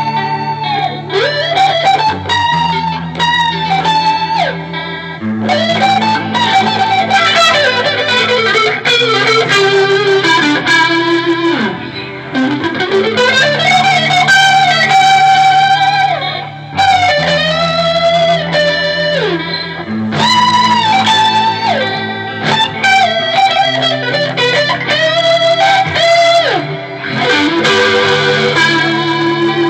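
Electric guitar played through a Mesa/Boogie Triple Rectifier amp, improvising lead lines full of slides and bends over held low notes. Recorded on a phone, with poor sound quality.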